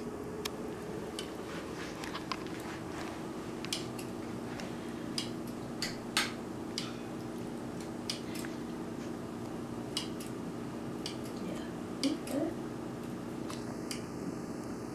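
Kitchen scissors snipping chicken breast into pieces over a stainless steel pot, with irregular sharp snips and clicks about every second.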